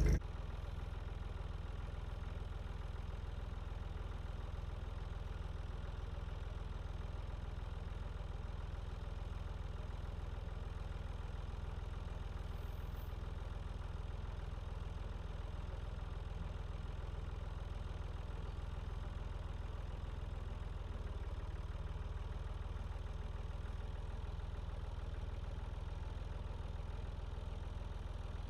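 Tractor engine running steadily, a low, even drone.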